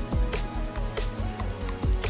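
Background music with a beat: deep bass-drum hits that drop in pitch, sharp snare hits, and a melody line.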